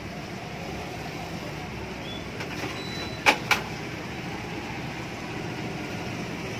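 Steady street and market background noise, broken about three seconds in by two sharp knocks a quarter second apart: a knife striking the wooden chopping block as fish is cleaned.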